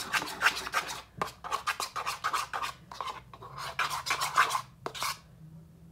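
Metal spoon stirring thickening slime in a plastic bowl, the glue and activator turning clumpy: quick repeated stirring strokes that stop about five seconds in.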